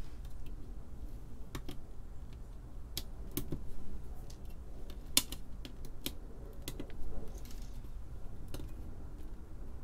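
Side cutters snipping the excess leads of freshly soldered resistors on a circuit board: a string of sharp, irregularly spaced clicks, the loudest about five seconds in.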